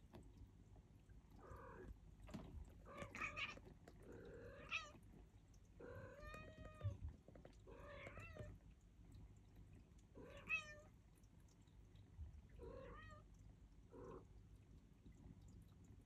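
Turkish Angora kitten meowing repeatedly, about eight short, high calls spaced a second or two apart.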